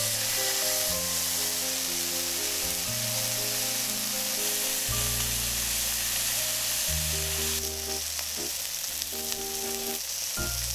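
Bacon-wrapped egg rolls frying in a hot pan: a steady sizzle of bacon fat, with a light background tune playing along.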